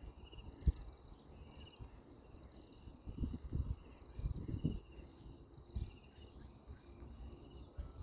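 Insects chirping in a steady pulsed chorus at two high pitches, with a few dull low thumps: a sharp one under a second in and a cluster between about three and five seconds.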